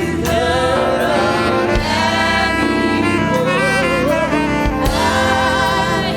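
Live gospel praise and worship music from a church band: a wavering melody line with vibrato over a steady sustained backing.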